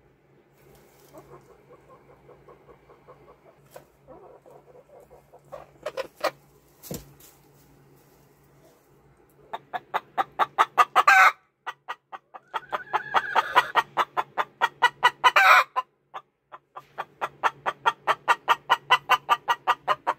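Domestic hens in nest boxes: a faint low grumble for the first several seconds, then three loud bouts of rapid clucks, about nine a second and two to three seconds each. This is the growl of a hen trying to lay while another hen contests the nest box. A drawn-out squawk rises over the second bout.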